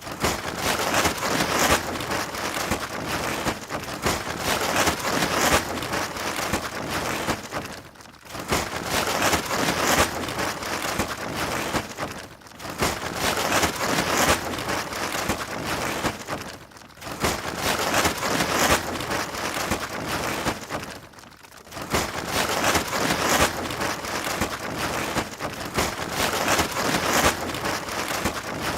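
Plastic tarp flapping and crackling in the wind, a dense, irregular rustle that eases off briefly about every four to five seconds before picking up again.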